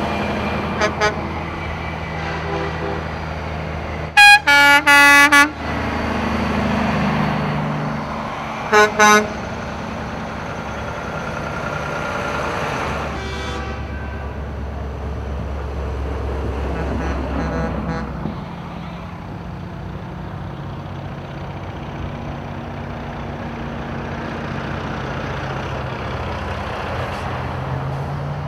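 Semi-truck tractors driving past in a convoy, their diesel engines running, with air horns blown several times: two short toots about a second in, a loud run of four blasts around four to five seconds in, two more short blasts near nine seconds, and a fainter one around thirteen seconds.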